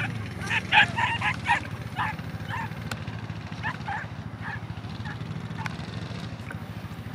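Dogs barking and yipping in quick, excited series, densest in the first two seconds and thinning out after, over a steady low drone.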